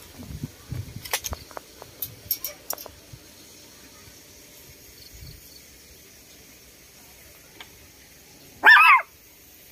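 A single short, loud animal call with a wavering pitch near the end, preceded by several sharp clicks in the first few seconds.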